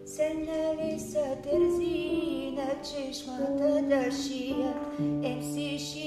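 A woman singing a wavering melody with vibrato over sustained held accompanying notes; a deeper held note comes in about five seconds in.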